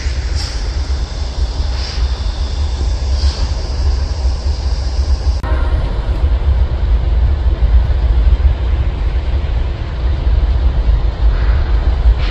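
Freight train with diesel locomotives moving slowly through a rail yard, giving a heavy, steady low rumble. A high hiss over it cuts off suddenly about five seconds in.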